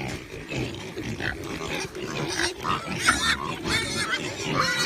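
Farm animals calling: a series of short, high calls over a rough low background, coming closer together in the second half.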